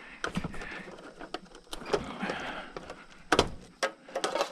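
Small hand snips cutting the wiring out of a kitchen range: a series of sharp clicks and snaps, the loudest about three and a half seconds in, with the rustle of the wires being handled.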